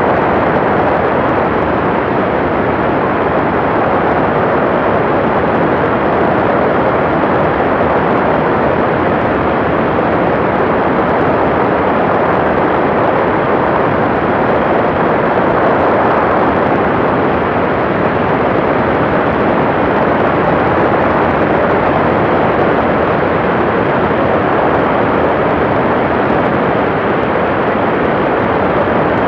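Steady, loud rush of wind and engine noise from a TrueLite Part 103 ultralight aircraft in flight, holding even throughout.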